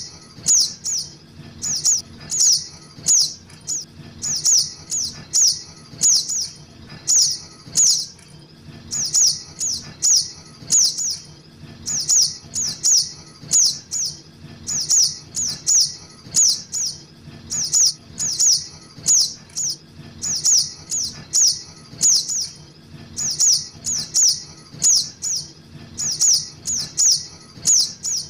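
Lure recording of juvenile sogok ontong (little spiderhunter) calls. Short, high chirps, each sweeping downward, repeat in quick runs of two to four, about two a second, over a faint low hum.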